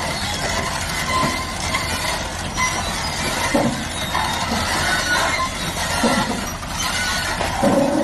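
Caterpillar crawler bulldozer's diesel engine running with a steady low rumble while its steel tracks squeal and clank as it moves. A steady horn-like tone starts near the end.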